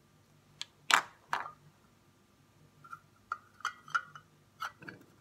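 A few sharp, scattered clicks and taps, with short faint squeaky sounds between them.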